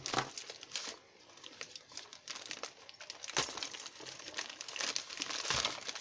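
White paper wrapping crumpled and torn by hand while a taped parcel is unwrapped: irregular crinkling and rustling, sparse at first and busier in the second half, with a couple of sharper rips.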